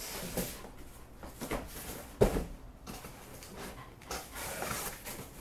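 Cardboard box being opened by hand, without a cutter: cardboard rustling and scraping with a few knocks, the loudest a sharp knock about two seconds in, and a longer rustle near the end.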